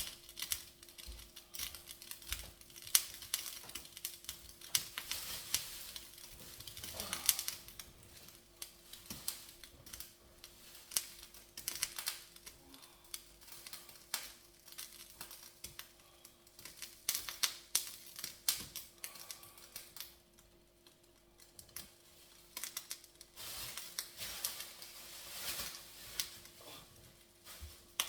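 Irregular clicks, taps and knocks of kitchen items being handled, with stretches of rustling, over a faint steady hum.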